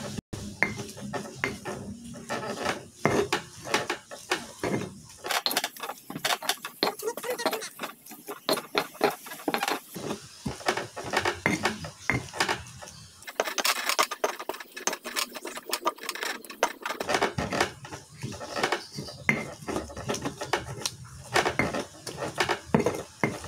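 Stone pestle grinding sambal terasi in a stone mortar (ulekan and cobek): quick, irregular stone-on-stone scraping and knocking as chili, tomato and shrimp paste are crushed.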